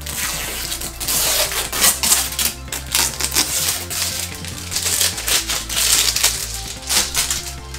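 Blue adhesive packing tape being peeled off the plastic UV cover of a resin 3D printer: a loud, ragged crackling tear in long pulls. Background music with a steady bass runs underneath.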